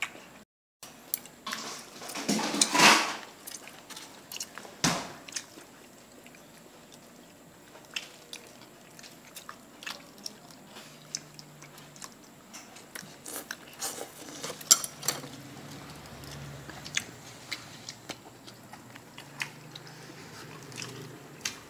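Close-up chewing and mouth sounds of someone eating, with scattered light clicks and taps of chopsticks against styrofoam food boxes. A brief louder noise comes about two and a half seconds in.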